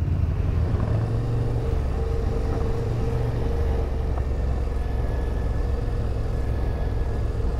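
Yamaha Ténéré 700's parallel-twin engine running steadily under way, a low rumble with a held tone above it. The engine note shifts slightly about two seconds in.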